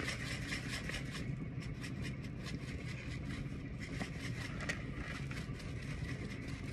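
Seasoning shaken from a shaker-capped jar over a raw beef roast: a rapid, irregular patter of granules and shaker rattle, over a steady low hum.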